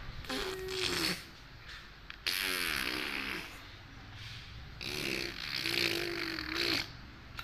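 A baby's vocal noises made with its fingers in its mouth: three breathy bursts, each carrying a hum-like pitch, with short pauses between.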